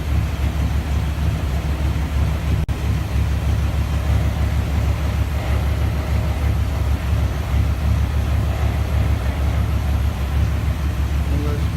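1997 Chevy 1500's 5.7-litre (350) V8 idling steadily with a low, even pulse, running again after its water pump was replaced. A single sharp click about three seconds in.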